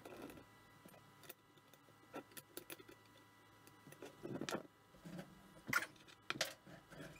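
Steel tubing and a clamp being handled on a wooden workbench with gloved hands: scattered light metal clicks and clinks, with a few louder knocks in the second half.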